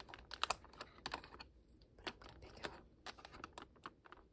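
Coloured drawing pens clicking and tapping against one another as a hand sorts through them in their case, a quick, irregular patter of light plastic clicks.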